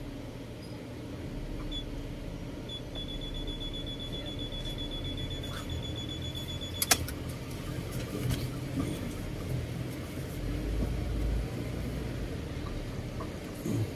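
Low, steady rumble of a car heard from inside the cabin. A faint high, rapidly pulsing beep runs for a few seconds and ends with a sharp click about seven seconds in.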